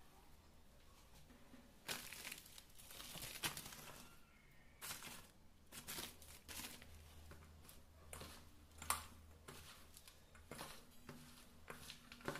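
Hands tossing and squeezing shredded cabbage and potato with flour in a steel bowl, giving faint, irregular rustling and crinkling. A steady low hum runs underneath.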